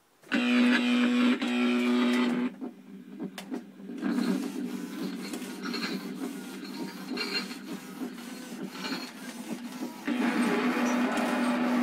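Gemmy animated monster prop's gear motors whirring and clicking as it moves its head, arms and eyes. A louder steady whine comes in for about two seconds at the start and again near the end.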